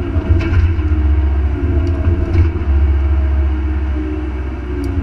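Mini excavator's diesel engine running under hydraulic load as the boom and bucket work: a steady low drone with higher tones that come and go, and a few light clicks.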